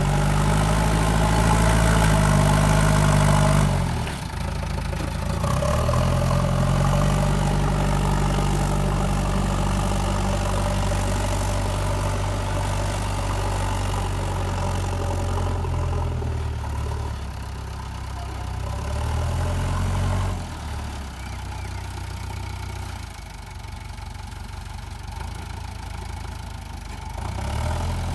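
JCB 3DX backhoe loader's diesel engine running, its revs rising and falling several times: revved up at first, dropping about four seconds in, climbing again, then settling lower in the second half before picking up near the end.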